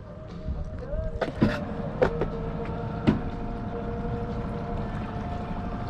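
Boat motor running steadily with a low rumble, its pitch shifting a little. Several sharp knocks come between about one and three seconds in.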